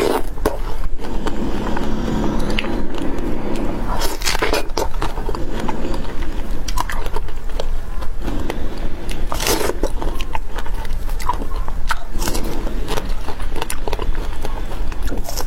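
Close-miked eating of a large fresh strawberry: a few distinct bites at intervals, with chewing in between.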